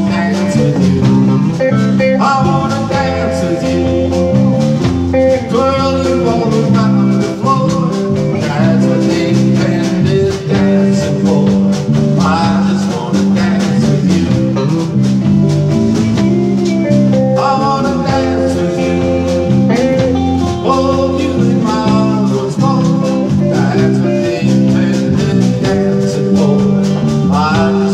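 Live country band playing with guitars and bass, a male voice singing over them.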